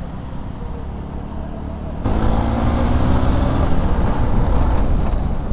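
Motorcycle engine running with wind noise while riding. About two seconds in, the engine gets louder and its note climbs as the bike accelerates.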